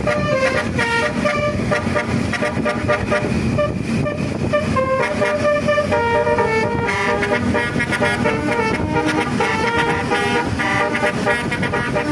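Bus basuri (telolet) multi-tone horn playing a dangdut tune note by note, longer held notes at first, then quick repeated notes from about halfway through.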